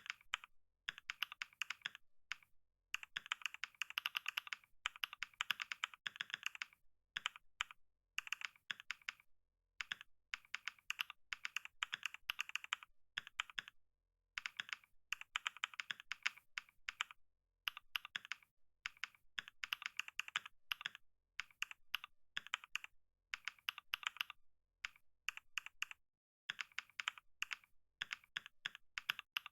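Fast typing on a computer keyboard: rapid runs of clicking keystrokes, each run a second or two long, broken by brief pauses.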